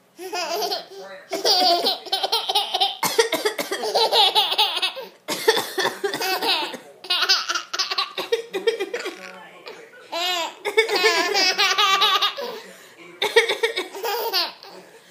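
A baby belly-laughing in repeated high-pitched bouts, about seven of them, each one to three seconds long with brief breaks between.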